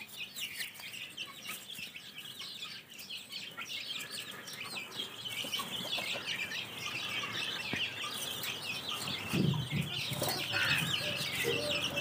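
A brood of chicks peeping constantly in many rapid, high chirps as they feed, with an adult hen clucking low a few times in the last few seconds.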